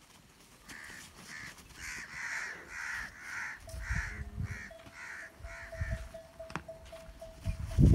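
Crows cawing, a run of about ten caws in the first six seconds. Low rumbles come and go beneath, the loudest near the end.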